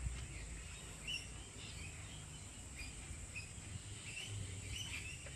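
Faint outdoor ambience: scattered short bird chirps over a low, steady hum.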